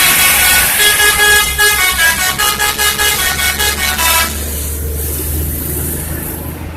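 Bus 'telolet' multi-tone musical horn playing a quick run of short, changing notes, which cuts off about four seconds in. The bus engine keeps running underneath and grows fainter afterwards.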